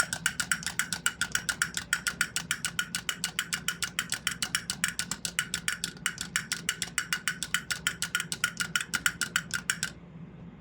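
Mickey Mouse drum toy beating its little drum in a fast, even rattle of taps, about seven a second, over a faint low hum, stopping abruptly near the end.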